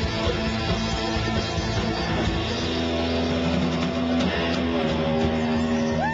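Live rock band playing, with guitar prominent; about halfway through, the band settles onto long held notes.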